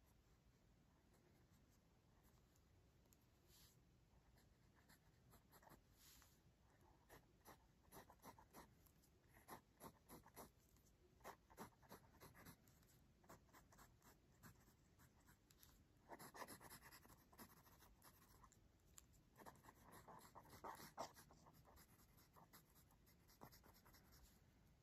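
Faint scratching of a Pentel EnerGize mechanical pencil's lead on paper while sketching: many short, separate strokes, thickening into two runs of quick back-and-forth shading about two-thirds of the way through.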